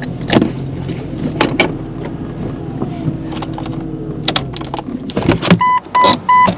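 Inside a Jeep Cherokee, the engine runs low under a series of sharp clicks and knocks, like keys and door handling. Near the end the engine hum drops away and an electronic warning chime starts beeping rapidly, about three beeps a second.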